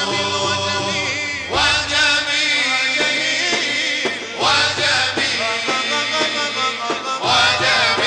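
Male munshid singing an Arabic madeeh, a devotional praise song for the Prophet, in long ornamented phrases without clear words. New phrases rise in with a swoop about every three seconds, over a low held drone.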